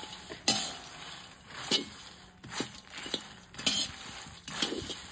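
Metal spatula scraping across a dry iron pan and tossing puffed lotus seeds (makhana) as they dry-roast, in several quick strokes about a second apart, with the light seeds rattling against the metal.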